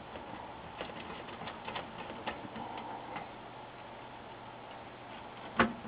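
Light, irregular metallic ticks and clicks of a hand screwdriver driving screws through the power supply board into the monitor's sheet-metal chassis, with one louder knock near the end.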